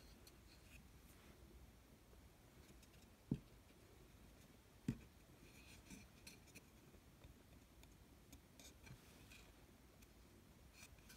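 Near silence with faint handling of carved wooden pieces: light rubs and ticks, and two short low knocks about a second and a half apart, a little over three seconds in.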